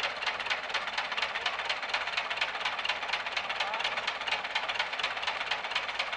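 Tractor's diesel engine running with a fast, even clatter of several beats a second at a constant level.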